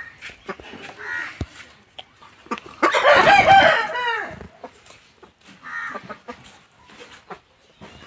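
Aseel rooster crowing once, a long call about three seconds in that falls in pitch at the end, with a few shorter calls before and after it.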